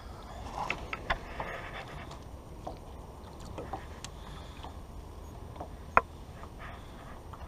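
Water lapping and sloshing at the side of a small boat, under a steady low rumble. Scattered light clicks and knocks come through, and one sharp click about six seconds in is the loudest.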